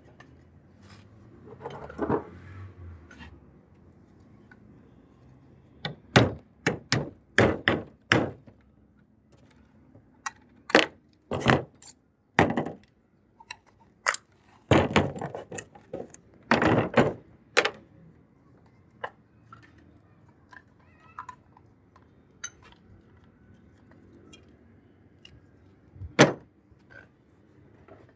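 Sharp metallic knocks and clicks as a Beretta 301 shotgun is taken apart on a wooden table: a small hammer tapping out pins and steel parts being pulled out and set down. A quick run of about five taps comes about six seconds in, then scattered knocks, and one loud knock near the end.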